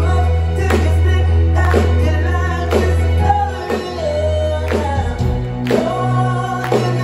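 Live stage show music: a singer over a band with a steady beat about once a second and a held bass note that changes about five seconds in.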